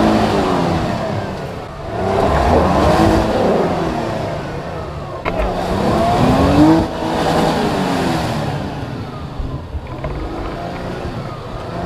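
Off-road 4x4's engine revving hard in several surges, its pitch climbing and falling again as the throttle is worked, with one sharp knock partway through.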